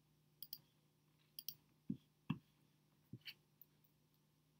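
Faint computer mouse clicks, a few sharp ones in quick pairs, with several soft low knocks in between, over a faint steady hum.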